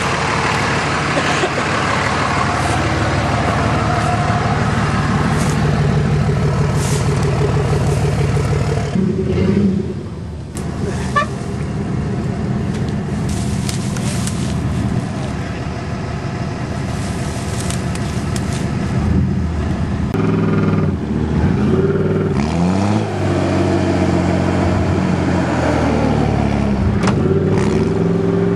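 Diesel pickup truck engines working hard in a mud hole while the tyres churn through mud. The engine runs loud and steady at first, dips briefly about a third of the way in, then revs up and down repeatedly in the last third.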